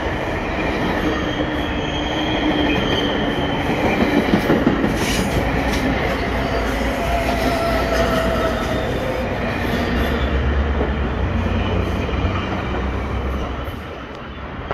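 GO Transit bilevel passenger coaches rolling past along the platform: a steady rail rumble with thin, drawn-out wheel squeals. The sound falls away near the end.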